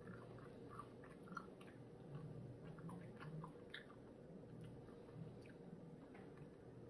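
Faint close-up chewing of crispy fried chicken: small crunches and wet mouth clicks, most of them in the first few seconds.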